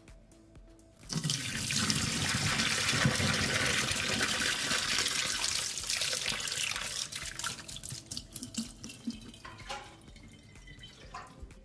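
Liquid pours out of a steel ATV fuel tank into a kitchen sink, splashing on the basin and running down the drain. It starts about a second in, runs strongly for several seconds, then tapers to a trickle. A couple of light knocks follow near the end.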